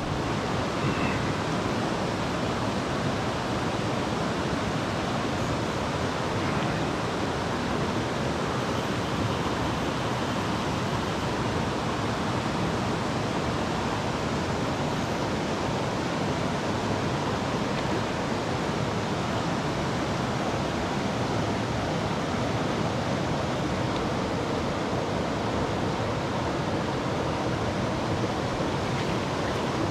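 Fast river water rushing steadily over a shallow, rocky riffle: an even, unbroken hiss.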